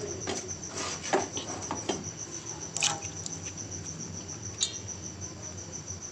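A cricket trilling steadily in the background, as an unbroken run of quick, even high pulses. Several light knocks of kitchenware, spoon or bowl, sound over it, the sharpest about three seconds in.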